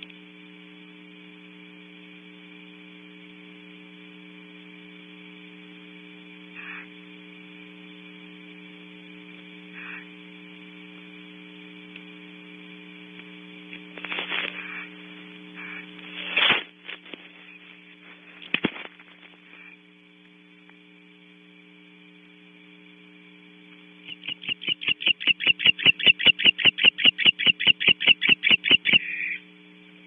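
Steady electrical mains hum on the nest camera's audio, with a few brief scrapes or knocks around the middle. Near the end comes a loud, rapid run of sharp pulses, about six a second, lasting some five seconds.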